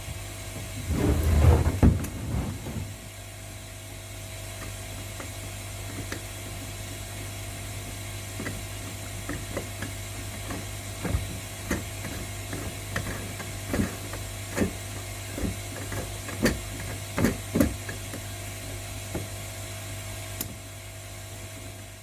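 Scattered light clicks and knocks of plastic tank connectors with rubber gaskets being handled and fitted into drilled holes in a filter box, over a steady low hum. A louder bump and rustle comes in the first two seconds.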